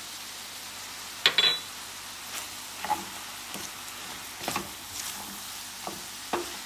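Wooden spatula stirring shrimp and vegetables in a stainless-steel frying pan: faint steady sizzling with scattered scrapes and clicks. A sharp knock about a second in is the loudest sound.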